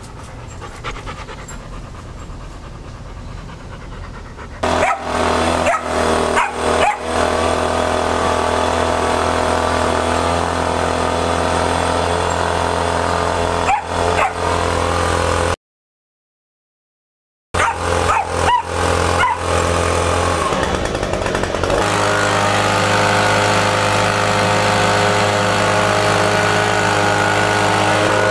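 Dogs playing, giving a few short yips and barks, over a steady motor hum that starts about four and a half seconds in and shifts in pitch near the end. The hum cuts out briefly partway through.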